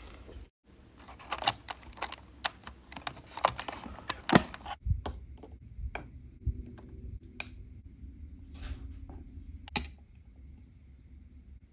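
Tiny plastic and metal dollhouse kitchen pieces clicking and tapping as they are handled and set down on a small wooden tabletop. The taps come in a quick scattered series, then thin out, with a sharper click near the end.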